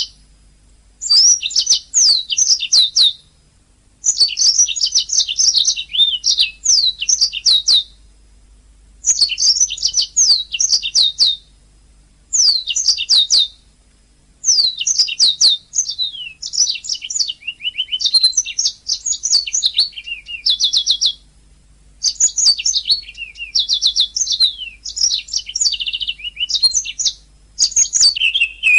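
Domestic canary singing: phrases of rapid, high, repeated notes and trills, each lasting one to three seconds, separated by short pauses.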